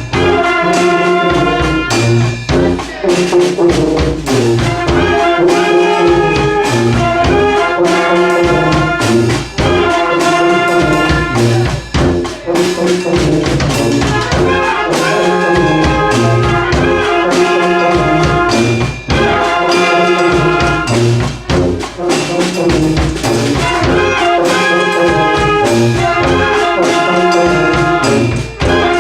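Brass band playing a tune together: trumpets and trombones play short phrases that repeat every couple of seconds over a held low-middle note, with a steady percussive beat.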